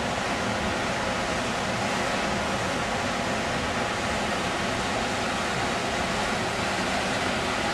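Mountain creek water rushing through a rock gorge: a steady, unbroken rush of white water.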